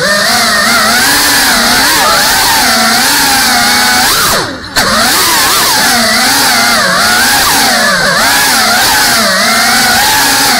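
Brushless motors and ducted propellers of a GEPRC CineLog35 cinewhoop FPV drone whining in flight, the pitch wavering up and down with the throttle over a steady prop hiss. About four and a half seconds in, the whine briefly drops away, then comes straight back.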